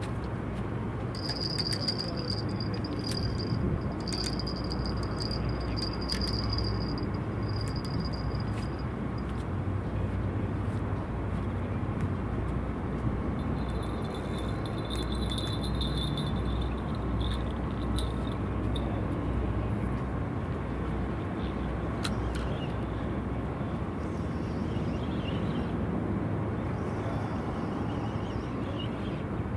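Steady low rumble of outdoor background noise, with thin high chirps coming and going over the first several seconds and again briefly about midway, and a few faint clicks.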